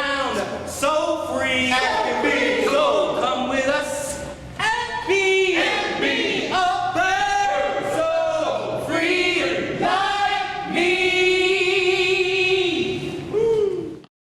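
A group of voices singing together in chorus, ending on a long held note before cutting off abruptly.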